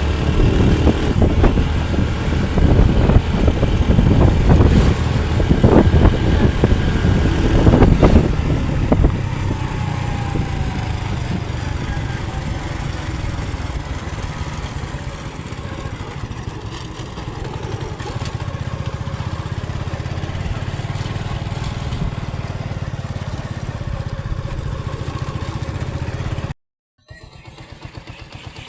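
Honda CD70 motorcycle's small single-cylinder four-stroke engine running under way, louder and uneven for the first nine seconds or so, then steady. Near the end it cuts off abruptly and comes back much quieter.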